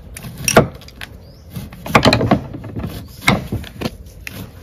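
Kitchen utensils knocking and clinking against a bowl as onion and chili go into a fish marinade. There is a sharp knock about half a second in, a quick cluster of clinks around two seconds, and two more knocks past three seconds.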